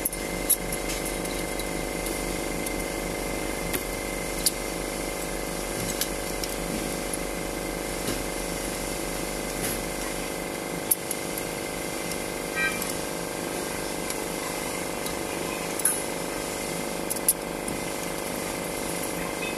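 Scattered sharp clicks and light metal taps from hand tools working the fittings of a diesel injection pump, a second or more apart, over a steady background hum.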